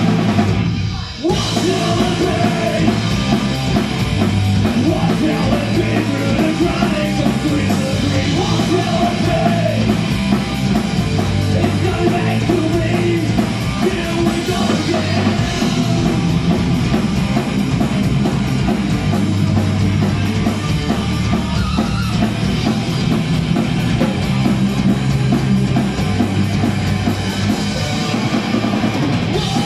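A rock band playing loud live: electric guitars, bass and a drum kit, with a shouting singer. The sound dips briefly about a second in, then runs on at full volume.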